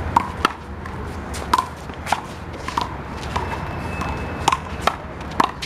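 A one-wall handball rally with the big blue rubber ball: about ten sharp smacks at uneven spacing as the ball is struck by hand and slaps off the wall and the ground.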